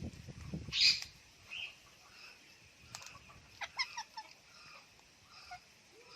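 Indian ringneck parrot calling: one short, loud, harsh squawk about a second in, then a quick run of short chattering notes around four seconds in, with some rustling near the start.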